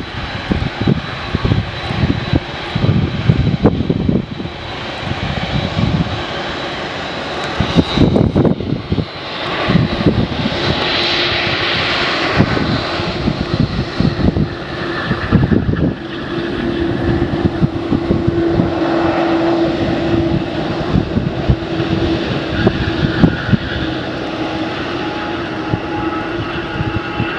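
Boeing 787-9's General Electric GEnx turbofans running at taxi power as the airliner rolls past, a steady jet whine with gusts of wind rumbling on the microphone. Later, a business jet's engines climbing out after takeoff, with several high whining tones.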